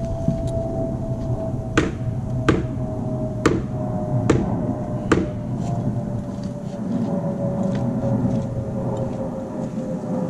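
Five sharp knocks, unevenly spaced under a second apart in the first half, as nails are driven into a wooden 2x10 deck beam. Under them runs a steady hum that slowly falls in pitch.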